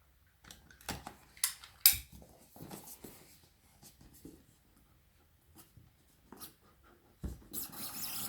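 Cardboard box being opened and its contents handled: sharp clicks and scrapes in the first few seconds, one louder click about two seconds in, quieter fiddling, then a burst of rustling near the end.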